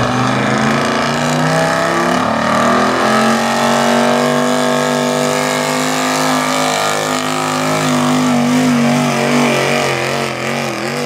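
Pulling truck's engine held at high revs under heavy load, dragging the sled. The pitch stays nearly level, wavers, and dips slightly near the end.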